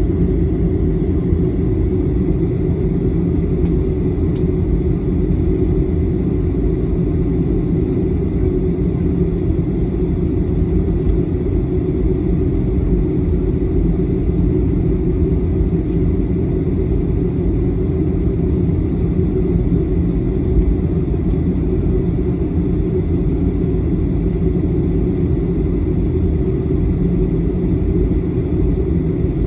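Jet airliner taxiing, heard from inside the passenger cabin: a steady low rumble of the engines at taxi power and the aircraft rolling along the taxiway.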